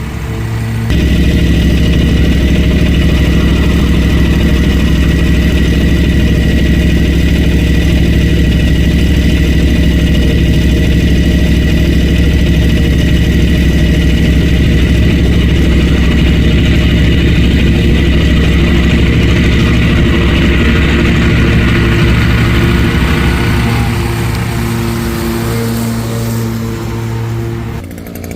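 An engine running steadily at a constant speed. It comes up to speed about a second in and eases off slightly near the end.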